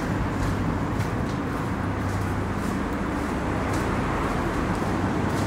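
Steady low rumble of road traffic, with a few faint clicks over it.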